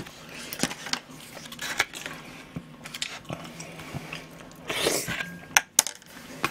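Spoon clicking and scraping against a cup ramen cup, with scattered sharp clicks and a short burst of noise about five seconds in.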